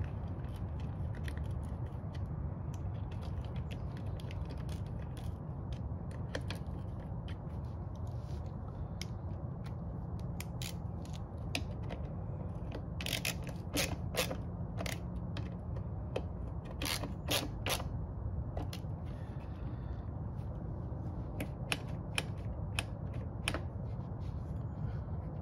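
Hand tools and small metal parts clicking and scraping as a carburetor is fastened onto a Husqvarna 360 BT leaf blower. The clicks are scattered and bunch together about halfway through, over a steady low hum.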